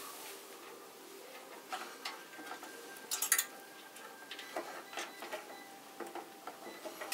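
Faint clicking and rustling of computer cables and their ties being handled and tucked into a PC case, with a louder rustle about three seconds in.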